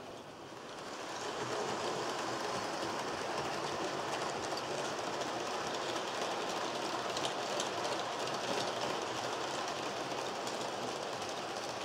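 Train running along track, its wheels clicking over the rail joints. It grows louder over the first second or two, then runs steadily.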